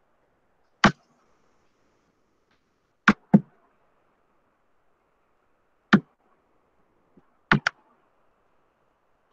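Sharp taps close to the microphone: one about a second in, two in quick succession at about three seconds, one near six seconds and another quick pair near the end, over faint steady background noise.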